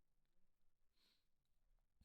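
Near silence: room tone, with one faint short hiss about a second in.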